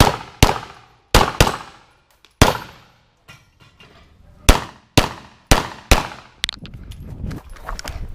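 Rapid pistol shots fired on an IPSC stage, about nine in the first six seconds, mostly in quick pairs with short pauses between them, each shot ringing out briefly. After the last shot come a few fainter clicks and rattles.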